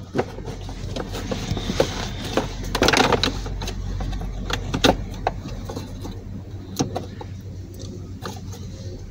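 Scattered plastic clicks, knocks and rattles as the lower dashboard trim panel under the steering column is handled and its wiring connectors are unplugged, with a denser rattle about three seconds in. A steady low hum runs underneath.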